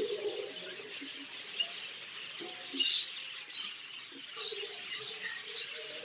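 A large flock of budgerigars chattering all at once, a steady overlapping din of high chirps and warbles with sharper single chirps standing out now and then.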